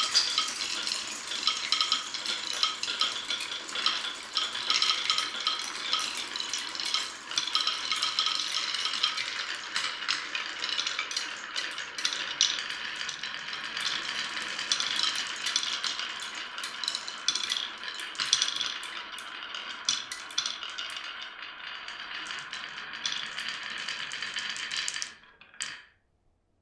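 Many glass marbles rolling and clattering through a wooden marble run, a dense continuous rattle of small clicks that cuts off suddenly near the end.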